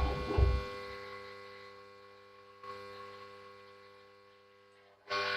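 Household water pump running while a washing machine fills, giving a steady electric hum made of several tones, loud enough to bother its owner. There is low rumbling in the first half second. The hum fades away over the next few seconds and comes back loud about five seconds in.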